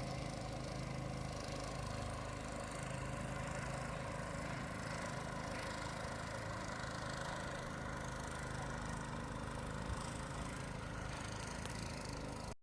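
An engine running steadily at an even speed, with a low hum.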